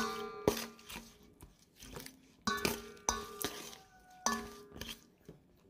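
Metal spoon stirring chicken-feet pickle and knocking against the bowl about eight times at irregular intervals, each clink ringing briefly; the clinks stop near the end.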